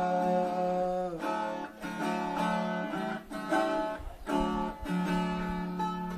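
Instrumental break of a Brazilian caipira song: acoustic guitar strumming chords that change about once a second, with no voice.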